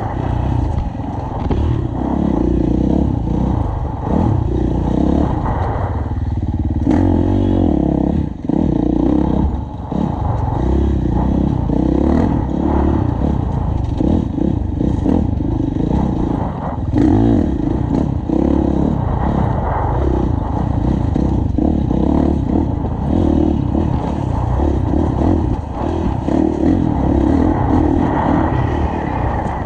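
Enduro dirt bike engine, heard from the rider's helmet, revving up and backing off continually as it is ridden hard along a rough woods trail, with a few sharp knocks from the bike over the ground. The throttle briefly shuts off around eight and ten seconds in.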